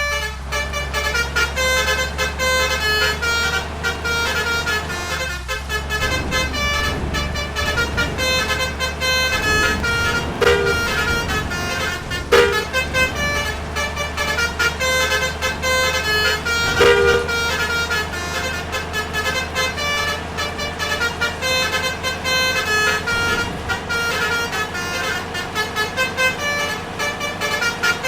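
Multi-tone 'telolet' musical bus horns (basuri horns) playing a quick repeating tune of short notes over the low, steady running of a bus engine.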